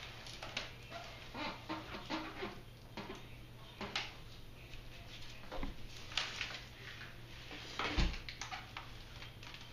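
Handling noise from a Scott Scale mountain bike being shifted and turned over on a couch: irregular rustles and clicks, with one loud thump about eight seconds in.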